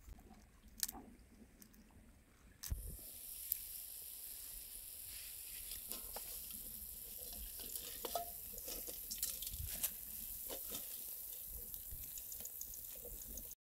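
Ingredients hitting hot oil in a pan and sizzling. The sizzle starts suddenly about three seconds in, after a few light knocks, and runs on steadily with scattered pops.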